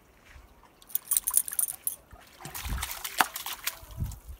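A dog wading and pawing through a shallow, rocky creek, the water splashing in quick bursts: one bout about a second in and another near the middle, with a few low dull bumps.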